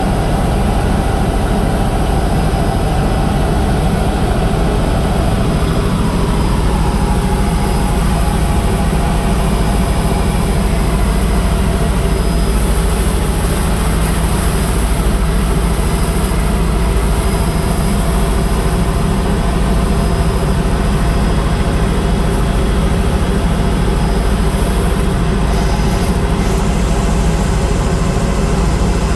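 Helicopter in flight: loud, steady engine and rotor noise.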